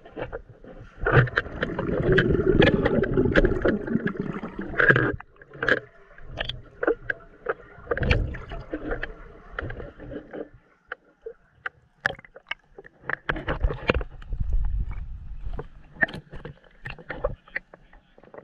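Pool water splashing and sloshing against a handheld camera as it goes under and breaks the surface. There is a dense, muffled stretch of churning water in the first few seconds, then scattered sharp, irregular splashes.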